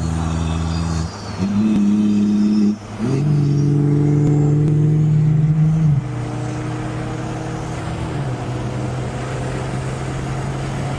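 Turbocharged B58 inline-six of a BMW 540i running at steady engine speeds. Its pitch steps up about a second in, dips briefly near three seconds, and steps down around six and again around eight seconds.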